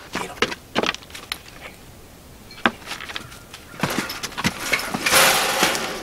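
Knocks and clanks as a wooden barn door is opened, then a large wire-mesh cage trap rattling and scraping as it is hauled out through the doorway, with the loudest harsh rattle near the end.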